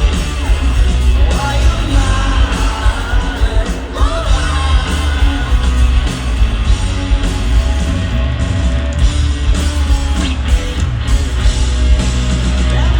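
A rock band playing live through a stadium PA, with singing over heavy bass and a steady beat.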